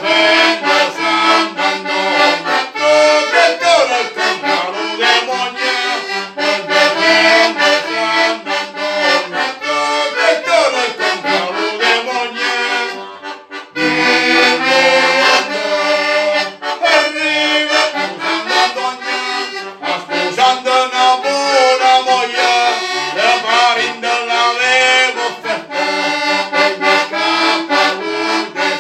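Diatonic button accordion (organetto) playing a lively traditional folk tune on its own, chords pulsing in a steady rhythm. It drops out for a moment about halfway through, then comes back in.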